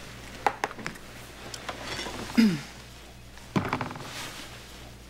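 Dishes and cutlery set down on a table: a few light clicks and knocks about half a second in and another cluster at about three and a half seconds. In between comes a short sound that slides downward in pitch, the loudest moment, over a low steady hum.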